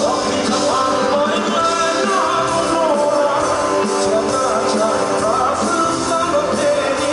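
Live rock band playing: electric guitars, bass, drums and keyboard, with a male singer singing over the band.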